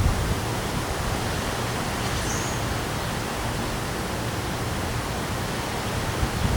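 Steady hiss of rain and wind from a passing storm with high winds.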